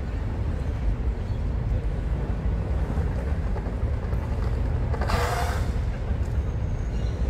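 Outdoor city-park ambience: a steady low rumble, with a brief hiss about five seconds in.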